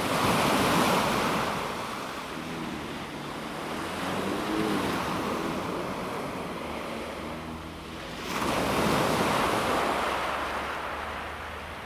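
Calm sea waves breaking on a pebble beach: one wave surges in at the start and fades away, and a second follows about eight seconds in and fades again.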